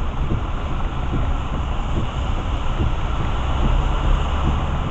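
Road noise inside a car driving on a rain-soaked freeway: steady rumble and tyre hiss on the wet road, with raindrops ticking irregularly on the windshield.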